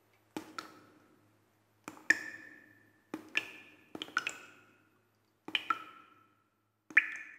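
Sparse percussive taps, mostly in close pairs about every one and a half seconds, each leaving a short ringing tone that fades.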